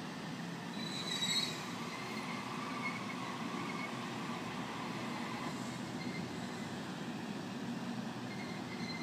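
Waratah electric passenger train moving slowly over the tracks, a steady low running sound with high-pitched wheel squeal on the rails that is loudest about a second in.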